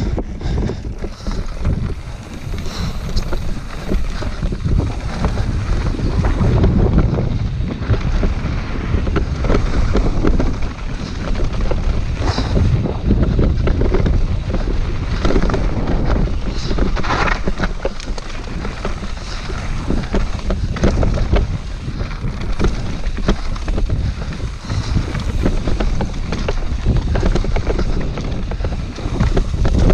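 Wind buffeting a GoPro's microphone while a mountain bike rides downhill over a dirt and gravel trail. Tyres crunch on the dirt and gravel, and the bike makes frequent short knocks and rattles over bumps.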